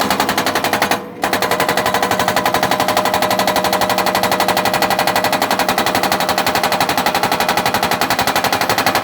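Hydraulic rock breaker (JCB hammer) on a JCB 3DX backhoe loader, pounding rock with rapid, evenly spaced blows. It breaks off for a moment about a second in, then hammers on steadily.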